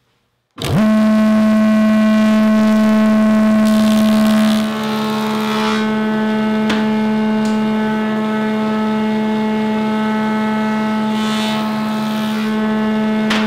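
Table saw fitted with a molding head cutter, starting abruptly after a brief silence and then running with a loud, steady whine. Twice a hiss rises over it as the cutter knives shape a bead profile into a wooden board fed along the fence.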